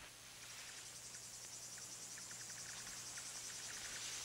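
Faint, steady chirring of insects: a high trill with a fast, fine pulse, over a low steady hum.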